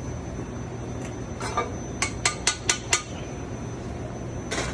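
Metal kitchenware clinking: sharp knocks of pans and utensils, with a quick run of about five clinks around two seconds in and another near the end, over a steady low kitchen hum.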